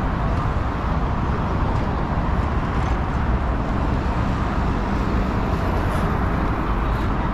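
Steady city-street traffic noise: a continuous rumble of passing road vehicles.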